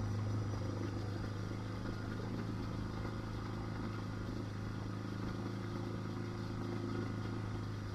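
Adventure motorcycle engine running at a steady speed, a constant low drone that holds the same pitch throughout.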